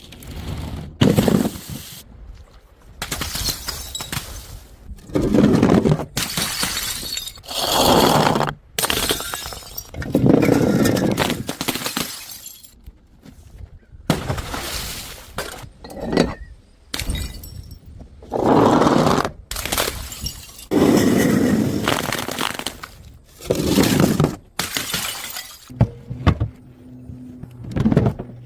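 Glass bottles smashing one after another: over a dozen separate crashes, one every second or two, each trailing off briefly.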